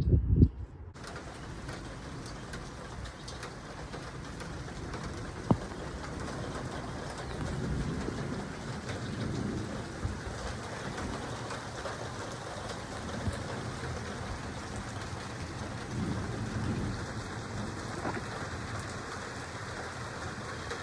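Steady heavy rain falling, with low distant thunder rumbling a few times. A brief loud low rumble opens it, and a single sharp tick sounds about five seconds in.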